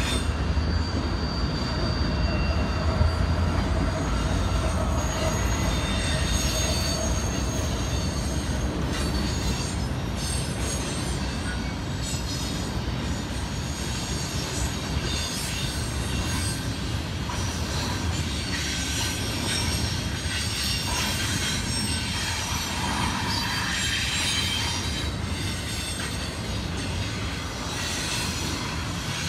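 BNSF intermodal freight train of double-stack container well cars rolling past: a steady low rumble of wheels on rail, with thin, high wheel squeal coming and going over it.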